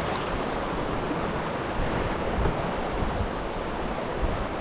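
Steady rushing of river water around an inflatable raft, with wind rumbling on the microphone.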